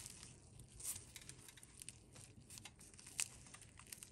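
Crisp, flaky baked puff pastry crackling and tearing as a keema-filled puff is pulled apart by hand: a run of faint dry crackles with one sharper crack about three seconds in.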